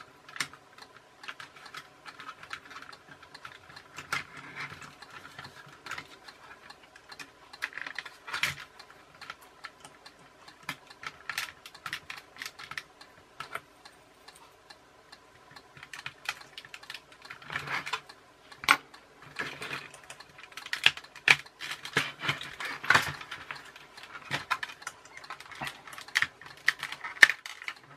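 Small metal tools prying at the plastic clip-together gearbox housing of a toy RC car: irregular clicks, taps and scrapes of metal on hard plastic. They come sparsely at first and grow busier and louder in the second half as the clips give way.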